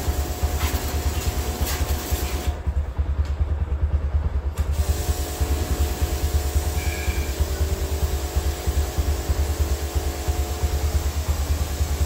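Pressure washer spraying a motorcycle: a hissing water jet over the washer's steady low motor hum. The spray stops for about two seconds a few seconds in, then starts again.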